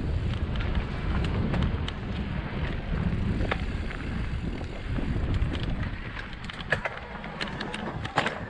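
Wind buffeting the microphone as a mountain bike rolls down a dirt trail, with scattered clicks and rattles from the bike over roots and stones. The wind rumble eases about two-thirds of the way through and the clicks come more often near the end.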